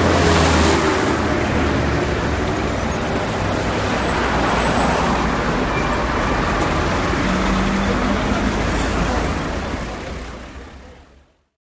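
City street traffic: car and bus engines running and passing in a steady rumble, with a few sharp sounds about two and a half to three seconds in. It fades out about ten seconds in.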